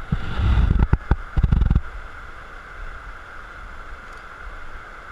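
Steady rush of creek water. In the first two seconds there are loud rumbling thumps on the microphone, from wind or handling.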